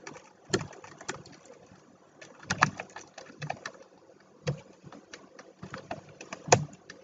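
Computer keyboard keys clicking in scattered, irregular single keystrokes during typing, with pauses between them.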